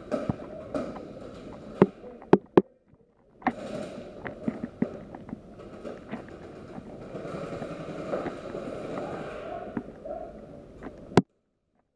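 Steady rustling and scuffing of a body-worn camera as its wearer moves quickly, broken by a few sharp single cracks. The loudest crack comes just before the sound cuts out near the end.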